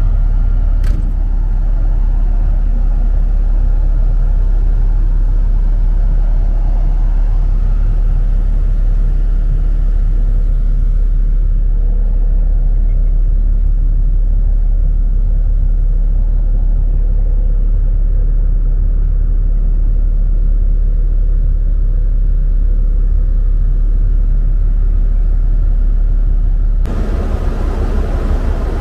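Loud, steady low rumble on a car ferry's open upper deck, with wind buffeting the microphone. About 27 seconds in it turns brighter and more uneven.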